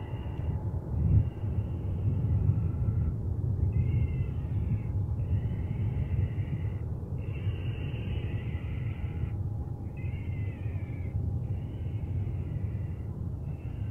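An animal calling over and over, about eight harsh drawn-out calls each lasting a second or more with short gaps between them, over a steady low rumble.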